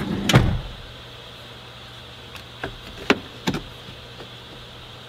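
Plastic interior trim panel of a Toyota Sienna sliding door being pressed back on: one loud thump, then three sharp clicks a little under half a second apart as its retaining clips snap into the door.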